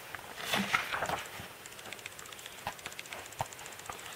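A page of a thick photo book being turned by hand: a paper rustle about half a second in, followed by a few faint clicks as the page is handled and smoothed down.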